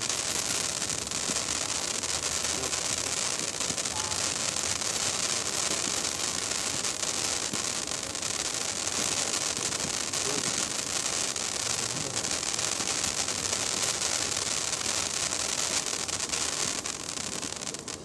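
Handheld firework fountain spraying sparks with a steady, high hiss, then dying away as it burns out near the end.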